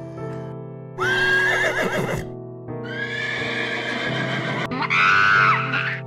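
Horse whinnying three times, each call a second or two long with a shaky, wavering pitch, the last one dropping at its end, over background music.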